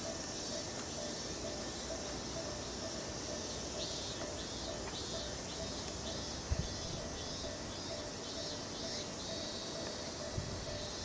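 Summer insects calling in roadside vegetation: a steady high hiss with a repeating pulsed chirp over it. There is a brief low thump about six and a half seconds in, and a softer one near the end.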